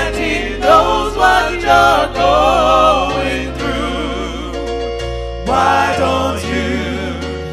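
Gospel song with wavering sung voices over held bass notes that change pitch every second or two.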